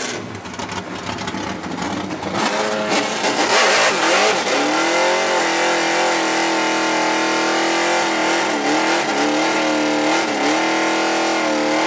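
A performance car engine revs up about four seconds in and is held at steady high revs. The pitch drops and comes back a few times as the throttle is briefly eased off.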